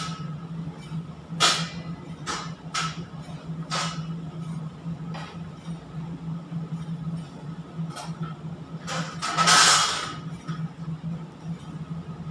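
Large stainless-steel pot of sauce at a rolling boil, with scattered clinks and knocks of spoon and seasoning containers over a steady low machinery hum. About nine and a half seconds in there is a louder clatter lasting about a second.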